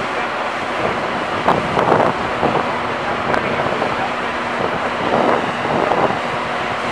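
The walking mechanism of a giant bucket-wheel excavator is running as its skid shoes are moved along. It makes a steady mechanical rumble with a faint hum and irregular louder surges, with wind noise on the microphone.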